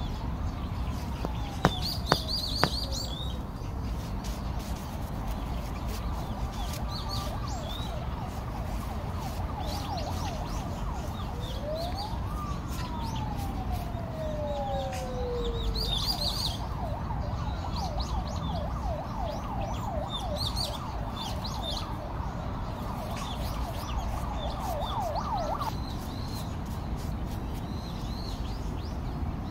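A siren slowly rising and falling in pitch, then switching to a fast warble for several seconds, over a steady low rumble. About two seconds in, three sharp taps of a rubber mallet on paving bricks; birds chirp now and then.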